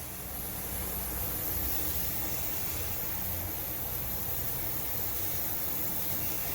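Steady noisy hiss with a low rumble underneath, even throughout, with no distinct knocks or tones.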